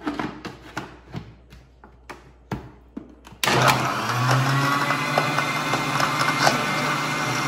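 Countertop blender's motor starting suddenly about halfway through and running steadily, chopping watermelon chunks into pulp. Before it starts there are a few light knocks and clicks as the plastic jar and lid are handled.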